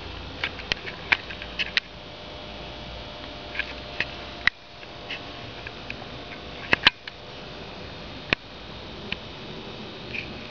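Scattered sharp clicks and ticks, with a close pair of louder clicks about two-thirds through, over a steady faint hum.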